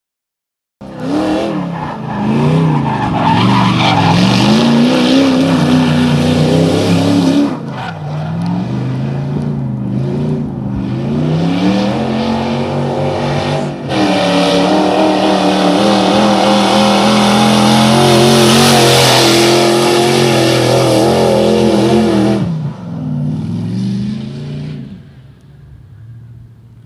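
BMW E30's swapped-in 4.0-litre V8 revving hard while drifting. The pitch climbs and falls as the throttle is worked, with tyre squeal over it. It drops back briefly a few times, holds high for a long stretch, then fades away near the end.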